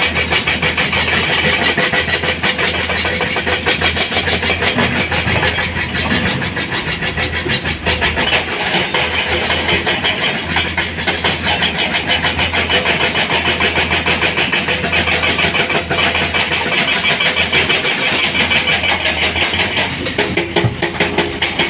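Heavy diesel engines running steadily with an even, rapid chug: a Komatsu PC210 hydraulic excavator working at rock, with a dump truck idling beside it.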